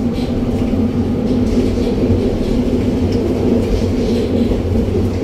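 Tram running along the track, heard from inside the passenger car: a steady rumble of the wheels and running gear with a constant low hum.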